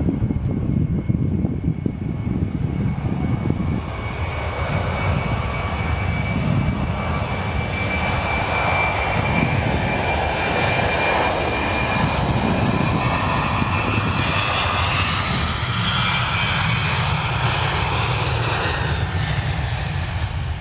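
Boeing 737-800's CFM56 turbofan engines at takeoff thrust: a continuous low rumble with a steady high whine. A hiss builds about two-thirds of the way through as the jet comes closest, then drops away near the end.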